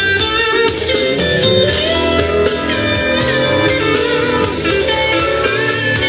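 JBL Boombox Bluetooth speaker playing a blues song at 100% volume in its outdoor mode: loud and clear, with no distortion.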